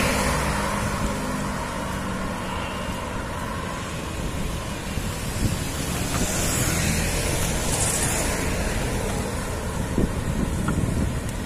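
Wind rushing over the microphone of a camera on a moving bicycle, over steady road-traffic noise, with a few sharp gusts buffeting the microphone near the end.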